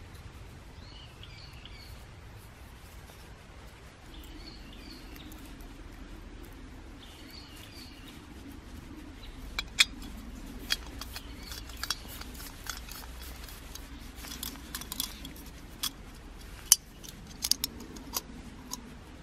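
Sharp plastic and metal clicks and taps, scattered and irregular from about ten seconds in, as a screw-on gas-canister stove and a clip-on plastic canister stand are handled and fitted together. Faint bird chirps come three times in the first half.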